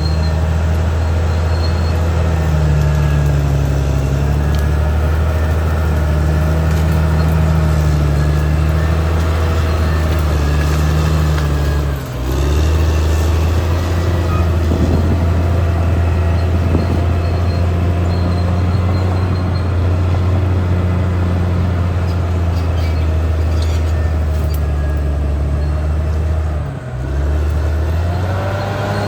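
Caterpillar D6R XL bulldozer's diesel engine running steadily under load, with a wavering higher whine over the low engine note. The sound dips briefly twice, about twelve seconds in and near the end.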